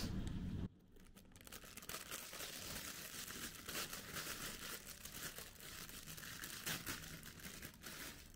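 Thin clear plastic bag crinkling and tearing as it is pulled open by hand: a string of faint, irregular rustles and crackles.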